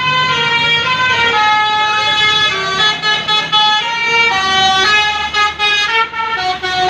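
Bus telolet horn of the 'basuri' type playing a tune: a loud run of held notes that change pitch one after another, with a few short breaks near the end.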